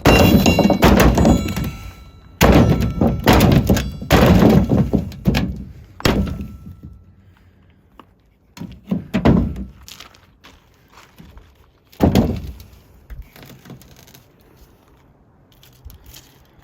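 Heavy thuds and knocks on an old split steel rim and tire, some with a metallic ring, as the tire is worked down off the rim. There are several big blows in the first six seconds, then single blows about nine and twelve seconds in.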